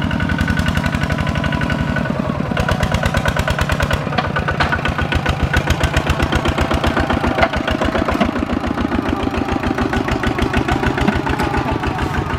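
Kubota single-cylinder diesel engine of a two-wheel walking tractor running steadily, with a fast, even chugging beat.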